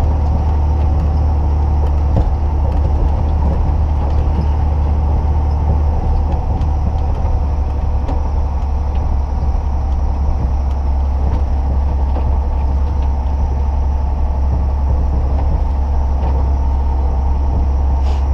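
Heavy diesel truck engine and road noise heard inside the cab of a sugarcane road-train truck while driving, a steady low drone with no change in pace.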